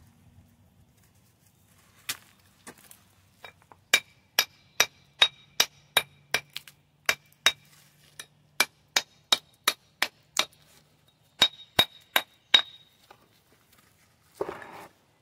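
Hand hammer striking over and over with a clear metallic ring, about two or three blows a second, in stone-breaking work; the blows stop a couple of seconds before the end, followed by a short rough scrape.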